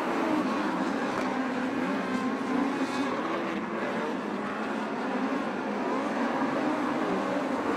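Engines of open-wheel dirt-track race cars running at speed around the oval, a steady drone that wavers a little in pitch.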